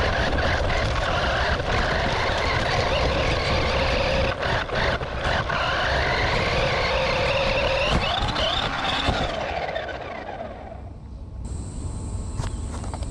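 Electric motor and gearbox of a 9115 Xinlehong 1/12 Challenger RC monster truck whining as it drives, the pitch rising and falling with the throttle and a few sharp clicks mixed in. The whine fades out about ten seconds in, leaving a faint steady high tone.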